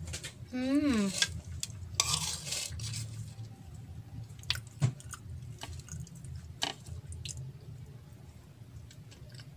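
Metal fork scraping and clinking on a ceramic plate while cutting into a soft slice of chocolate cake: a scrape about two seconds in, then a few sharp clinks, the loudest about five seconds in. A short hummed vocal sound rises and falls in pitch about a second in.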